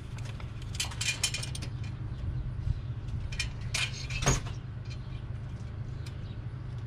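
A metal tape measure and marker handled against a truck's steel exhaust pipe while the cut line is measured and marked: light rattling clicks about a second in and a sharper tap just after four seconds, over a steady low hum.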